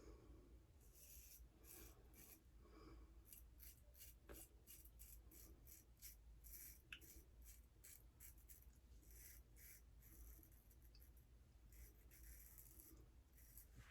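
Faint, short scraping strokes of a 6/8 straight razor cutting whiskers through shaving lather, about two strokes a second.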